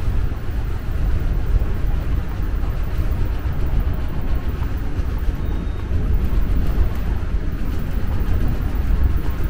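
Seoul subway ambience: a steady low rumble with a fainter hiss above it, without breaks.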